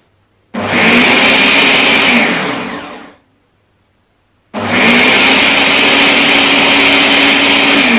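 Large countertop blender grinding thick bean batter for bajiya, run twice. The first run lasts about two seconds and then spins down with a falling hum. After a short pause the motor starts again about halfway through and runs steadily.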